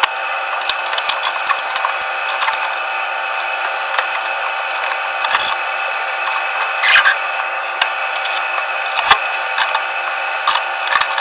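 Scattered clicks and light rattles of metal parts as the chain is worked into a Royal Coke vending machine, over a steady hum.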